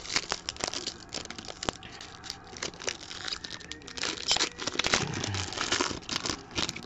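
Foil trading-card pack wrapper being torn open and crinkled by hand: a run of sharp crackles and rips, busiest a few seconds in.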